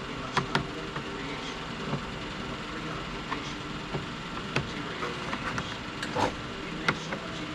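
Scattered small clicks and taps of a screwdriver and screws working at a car's door panel trim, about half a dozen, the loudest a little after six seconds, over a steady background hum.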